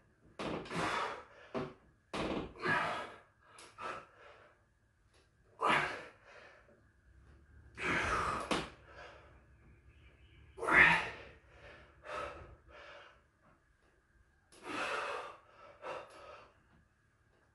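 A man's hard, sharp breaths and gasps during a set of strict pull-ups, one forceful breath about every one to two seconds, the loudest a little past the middle.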